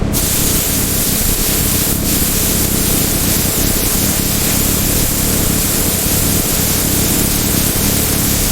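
A loud, steady hiss that starts abruptly and then holds even, with no rhythm or pitch to it.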